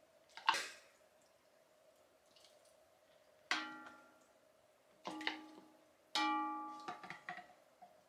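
A short clink, then three clear ringing tones about a second or so apart, each struck sharply and dying away over about a second, with a few softer ones after the last.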